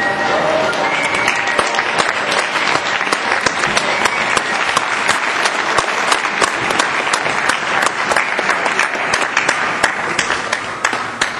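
Audience applauding: many hands clapping together in a large hall, dying away near the end.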